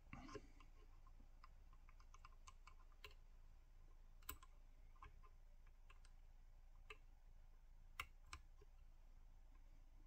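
Faint, scattered small metallic clicks of a disc detainer pick turning the discs inside a Gerda disc detainer padlock, as the picker feels for the gates. The two sharpest clicks come about four and eight seconds in.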